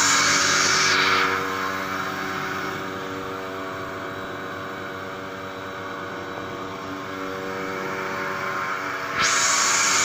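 Milking machine's vacuum pump unit running with a steady machine hum. A loud air hiss is on top of the hum for about the first second and starts again suddenly about nine seconds in.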